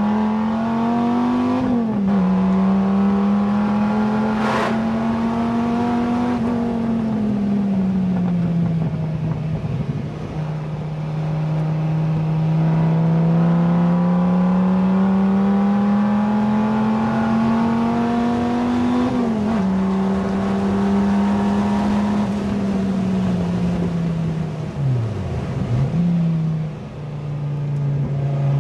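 Dodge Viper SRT-10's V10 engine, with a modified exhaust, pulling hard through the gears, heard from the driver's seat. The note climbs slowly and drops sharply at upshifts about two seconds in and again past the middle, then falls as the car slows, with two quick dips in pitch near the end before it settles to a steady lower drone.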